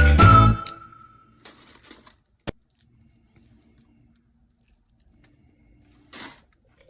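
Background music fading out in the first half-second, then mostly quiet with a brief rustle, a single sharp click and another short rustle near the end: faint handling noises.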